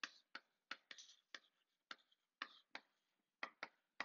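Chalk writing on a blackboard: a faint, irregular run of short taps and scratches, about a dozen in four seconds.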